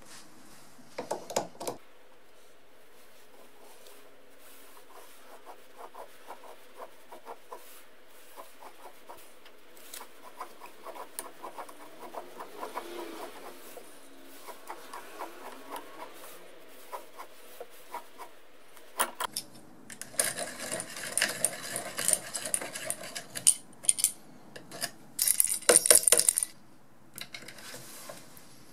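Hand-turned tube cutter being worked around a 3/8-inch copper pipe, making small regular ticks and clicks as the wheel tracks round. About two-thirds in the clicks turn louder and denser, with sharp metallic clinks and scraping.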